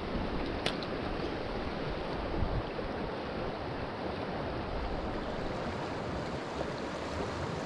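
Fast, shallow river water rushing steadily over stones in a riffle, with one light click about a second in.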